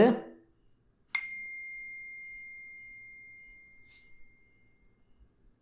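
A single bright bell-like ding about a second in, one clear tone ringing out and fading slowly over about four seconds. A short, soft high swish comes near the end of the ring.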